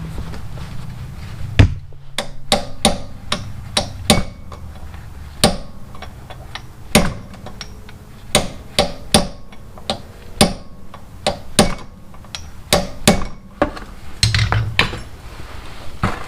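Hammer tapping at the parking-brake cable fitting of a car's old rear brake caliper to knock the cable out: about twenty sharp, irregularly spaced taps that stop a couple of seconds before the end.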